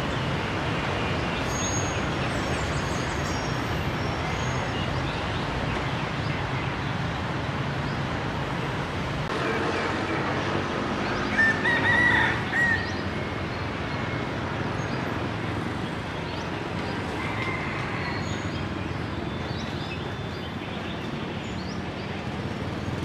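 A rooster crows once, about halfway through, over a steady low rumble. A few faint bird chirps are heard too.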